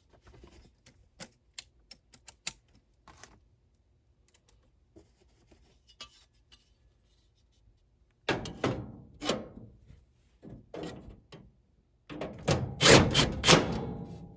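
Metal clicks and knocks as a furnace support bracket is handled and fitted back on. There are scattered light clicks at first, a group of louder knocks past the middle, and a burst of loud, rapid clattering near the end.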